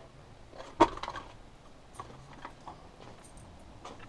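One sharp click about a second in, followed by faint light taps and clinks of small hard objects being handled.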